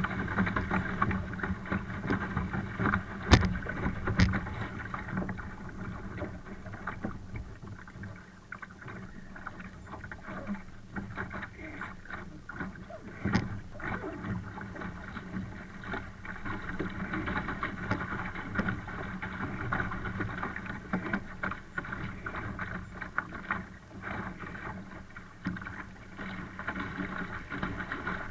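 Water rushing and splashing against the hull of a Laser sailing dinghy under way, with a few sharp knocks: two about three and four seconds in, and another near the middle.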